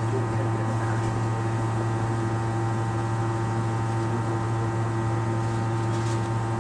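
A steady mechanical hum with a strong low drone and several higher tones above it, holding the same level and pitch throughout.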